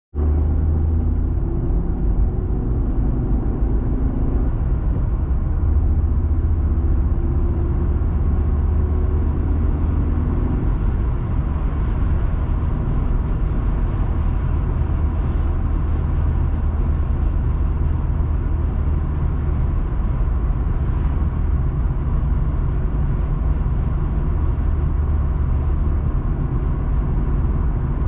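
Steady low rumble of a car driving at road speed, heard from inside the cabin: engine and tyre noise on the road surface.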